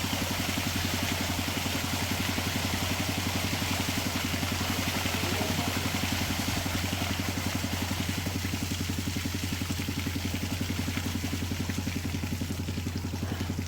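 A small engine running steadily at idle: a low even hum with a fast regular pulse.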